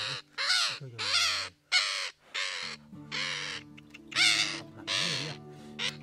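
A captured parakeet screeching harshly and repeatedly, about two loud squawks a second, over steady background music.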